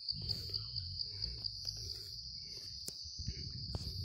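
Insects calling steadily in the forest, one high-pitched trill pulsing a few times a second, over a low rumble with a couple of light clicks.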